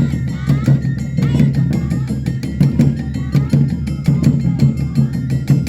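Awa odori festival music: drums and other percussion beating a fast, steady rhythm of sharp strokes, with a melody line gliding between notes over it.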